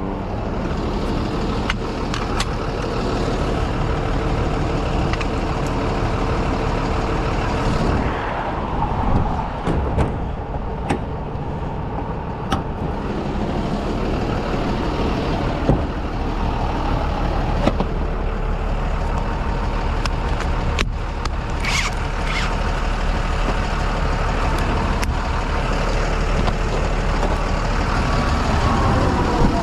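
Steady rush of interstate traffic, cars and heavy trucks passing close by on the highway, with one vehicle swelling past about eight seconds in. Scattered sharp clicks and knocks sound over the traffic noise.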